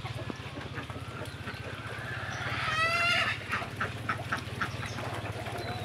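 Ducks quacking: a loud drawn-out call about three seconds in, followed by a quick run of short quacks. A steady low hum runs underneath.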